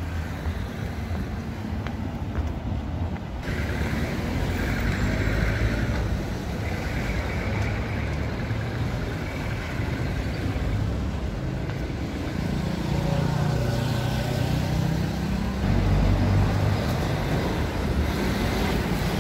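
Street traffic: vehicles driving past on a city road, with an engine growing louder and nearer about two-thirds of the way through.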